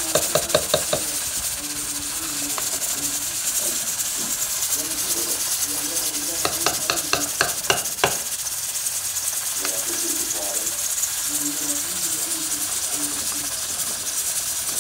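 A long metal spoon stirring and turning a large pot of rice and peas, knocking against the metal pot in two quick runs of taps, one at the start and one about seven seconds in, over a steady hiss.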